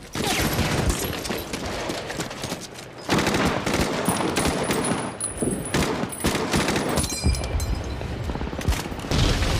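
Battle gunfire from a World War II war film: many guns firing at once in rapid shots and bursts. It eases briefly about three seconds in, then comes back loud.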